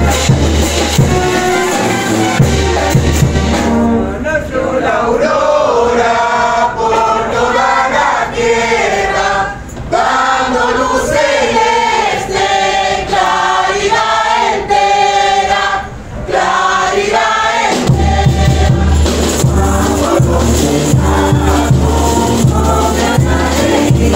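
A group of dancers, mainly women, singing a religious song together. A steady low drum beat plays under the singing at first, drops out about four seconds in, and returns about three-quarters of the way through.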